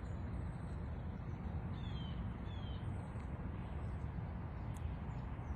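Steady rushing of a flowing river, with a bird giving two short falling calls about two seconds in.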